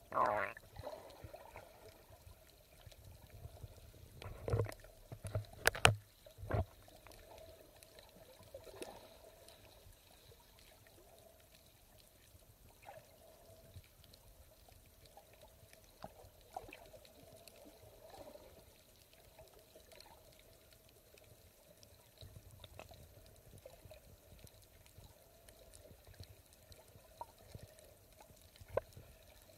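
Underwater sound picked up by a submerged camera: muffled water movement and bubbling under a faint steady hum. There are a few loud thumps in the first seven seconds, then only small ticks.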